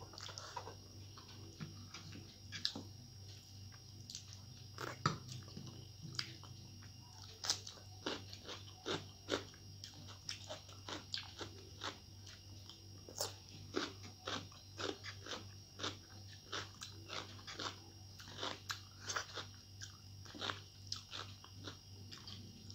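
Close-up chewing of a rice meal with crisp fried potato chips: sharp crunches come irregularly, about two a second, over a steady low hum.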